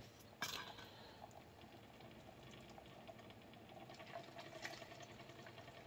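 Very faint whir of a magnetic stirrer hot plate spinning a stir bar in a glass beaker of liquid, getting a little louder near the end as the stirring is turned up. A short knock about half a second in.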